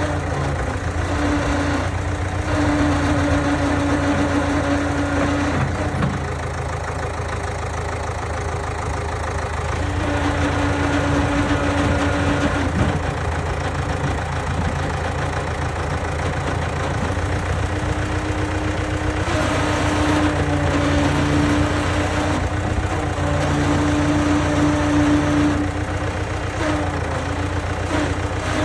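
Diesel engine of a Case 680G loader backhoe running steadily, with a droning tone that comes in and drops out several times, the sound getting a little louder each time it is there.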